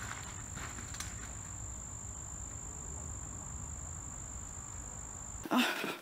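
Insects shrilling in one steady high-pitched tone over a low outdoor rumble. The shrilling cuts off about five and a half seconds in and a brief rustling burst follows.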